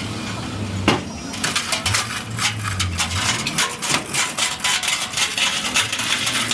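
Rapid metallic clinks and clicks, many in quick succession, over an on-and-off low hum.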